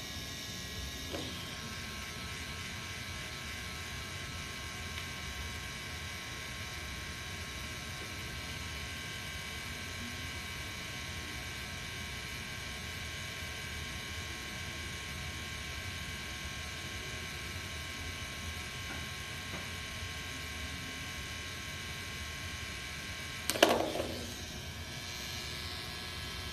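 Electric shaver lying on a wood floor and running, a steady buzzing hum. About three seconds before the end there is one brief, loud clatter.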